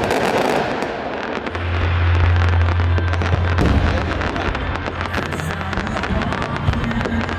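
Fireworks display: many shells bursting and crackling in quick succession, with music playing underneath.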